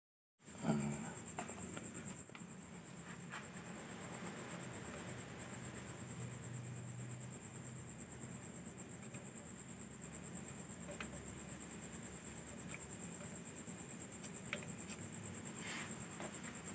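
A cricket trilling steadily, a continuous high-pitched, rapidly pulsing trill that starts abruptly about half a second in. A faint low hum and a few small ticks lie beneath it.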